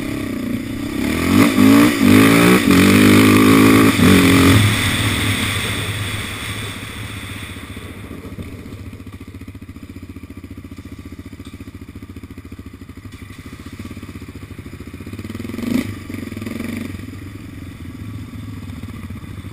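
Yamaha Raptor 700 quad's single-cylinder four-stroke engine revving hard with pitch rising and falling for the first few seconds, then easing off and settling to a steady idle. A single short clank near the end.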